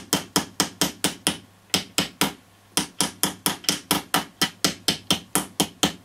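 A heavy screwdriver tapping rapidly on the metal can of an old AF116 germanium transistor, about four sharp taps a second with a couple of brief pauses. The transistor is under current, and the taps are meant to shake loose and burn off the tin whiskers shorting inside it.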